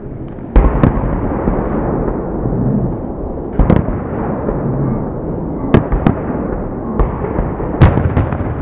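Aerial firework shells bursting: a string of sharp bangs, about eight in all, the loudest about half a second in and near the end, over a continuous din from the display.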